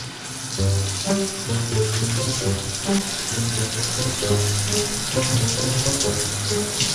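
Shower spray running steadily from the shower head. A background music track with a repeating bass line and melody comes in about half a second in.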